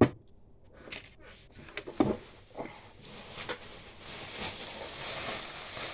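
Scattered small clicks and knocks of a CO2 blowback airgun pistol being handled as its grip back is worked loose, then a steady rustling hiss building from about three seconds in.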